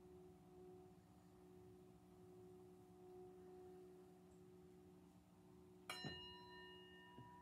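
A small handheld singing bowl ringing faintly, its low hum slowly fading, then struck once about six seconds in, giving a brighter, higher ring that holds on. The strike marks the end of the closing relaxation.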